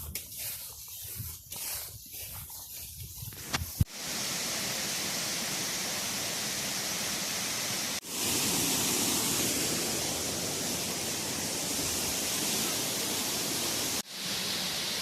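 Steady rushing roar of a waterfall that comes in about four seconds in, after some quieter uneven rustling and a sharp click, and dips for a moment twice.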